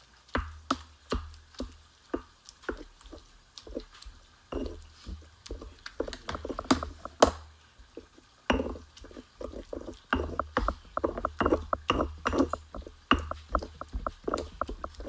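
Stone pestle (tejolote) pounding and grinding roasted tomatoes and chiles in a volcanic-stone molcajete. It makes wet knocks and scrapes, irregular at first, then steady at about four a second from about ten seconds in.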